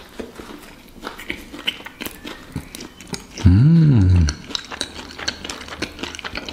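Biting into and chewing a fried fish sandwich in a bread roll, with small crunching and smacking clicks. About three and a half seconds in, a low hummed "mmm" rises and falls in pitch for under a second and is the loudest sound.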